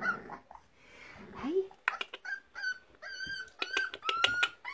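Four-week-old Staffordshire bull terrier puppies whimpering: a string of short, high-pitched whines starting about two seconds in, the last one rising in pitch.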